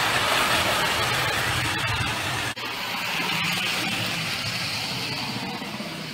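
Tinplate toy electric train running fast on metal track: a steady clattering rumble of wheels on the rails over a low electric-motor hum, loudest as it passes close by, with a brief break about two and a half seconds in.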